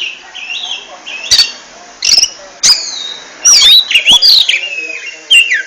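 Oriental magpie-robin (kacer) singing: a fast, varied string of whistled notes sweeping up and down, broken by sharp clicking notes.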